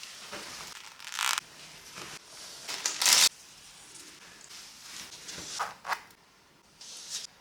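Crisp clothing packaging being torn open and handled, in a series of short rustling, tearing bursts. The loudest comes about three seconds in.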